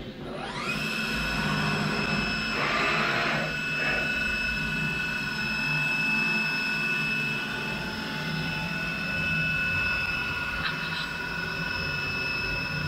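Spindle of a 1995 Bridgeport Torq-Cut 22 CNC machining centre spinning up: a rising whine over the first second that settles into a steady high whine as the program runs. A brief hiss about three seconds in.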